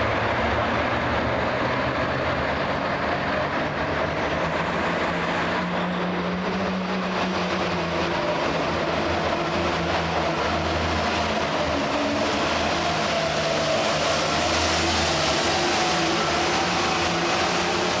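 Turbocharged International Harvester diesel tractor engine running hard under full load while pulling a weight-transfer sled. It is a steady, loud drone whose pitch wavers slightly.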